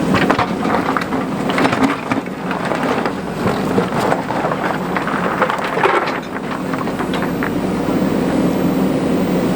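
Diesel engine of a JCB 3DX backhoe loader running steadily under load, with a spell of gritty scraping and clattering in the middle.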